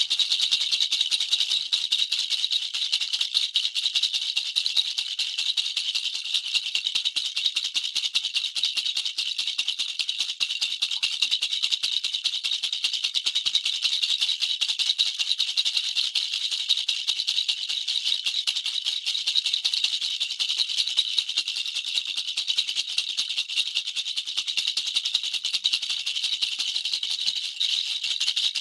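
Baby rattle toy shaken without pause, giving a dense, steady, high-pitched rattle.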